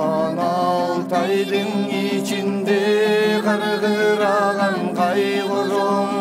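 Music, an Altai folk song: long, chant-like sung lines that glide in pitch over a steady low drone. Plucked strings come back near the end.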